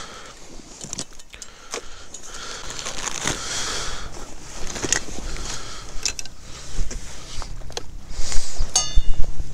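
Camping gear being unpacked by hand: rustling of bags and fabric with scattered clicks and knocks from buckles and straps, louder handling near the end with a short buzzy sound.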